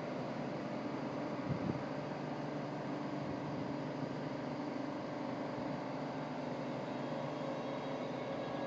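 DB Class 425 electric multiple unit standing at the platform with its on-board electrics and ventilation running: a steady hum with a few held tones.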